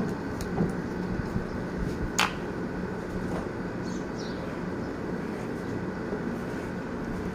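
Corded electric hair clippers running with a steady buzz while cutting hair at the side of the head, with one sharp click about two seconds in.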